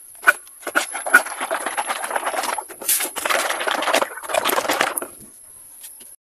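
Plastic jugs being handled and set down on a bamboo slat floor. A few sharp clicks and knocks come first, then a few seconds of dense crackly plastic rustling that stops about five seconds in.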